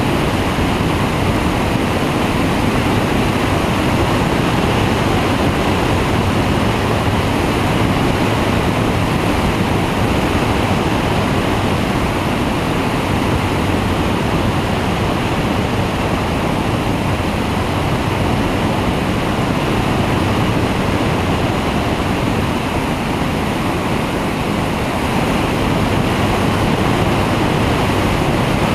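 Steady rushing of airflow over a camera mounted on the wing of a flexwing microlight trike in flight.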